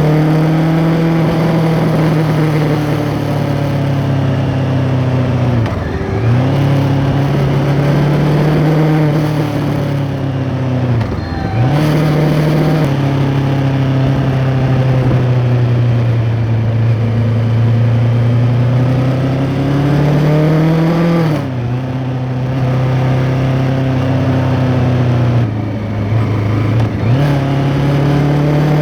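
2023 Kawasaki Ninja 650's parallel-twin engine, breathing through an Arrow X-Kone exhaust with the dB killer fitted, running under steady riding throttle, heard from under the seat. The engine note rises and falls gently and drops briefly four times where the throttle is rolled off.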